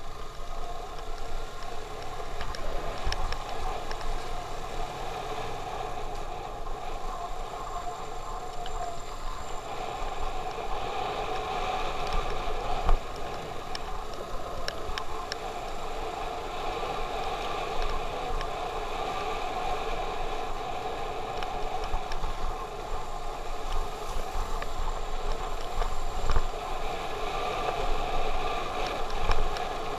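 Motorcycle engine running steadily at riding speed, heard from the rider's seat, with wind buffeting the camera microphone.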